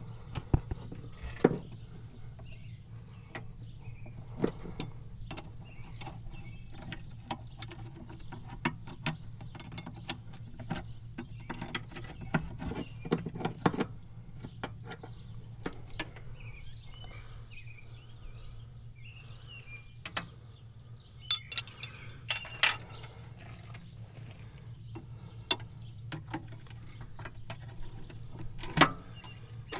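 Hand tools clicking and clinking against the metal fittings of hydraulic lines on a compact track loader, in irregular sharp clicks and knocks, with a steady low hum underneath.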